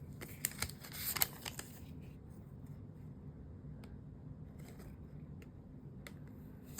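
A paper card and packaging being handled: crisp rustles and small clicks for the first second or two, then only faint light ticks over a low room hum.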